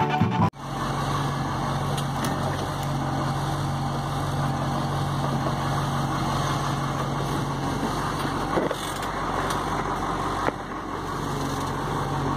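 Car engine running with a steady hum, after a music intro cuts off about half a second in.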